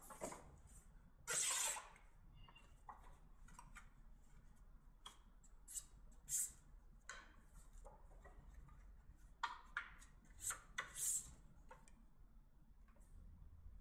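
Sheets of thin card and paper being handled, folded and creased by hand: a series of short rustles and swishes, the loudest about one and a half seconds in and several more close together near the end.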